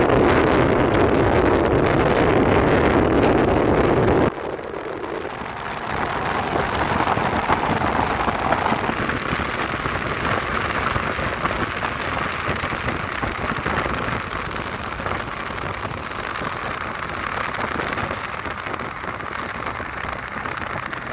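Freight train hauled by two diesel locomotives running past, its engines and wheels making a steady rumble that slowly fades as it pulls away. Heavy wind rumble on the microphone covers the first four seconds and cuts off suddenly.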